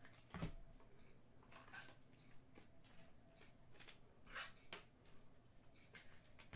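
Faint flicks and slides of trading cards being handled, short soft scrapes coming irregularly, about one a second.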